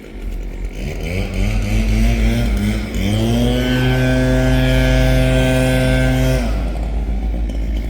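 A motor vehicle's engine accelerating on the street: its pitch rises about a second in, rises again a couple of seconds later, holds steady for about three seconds, then drops away abruptly, over steady low traffic rumble.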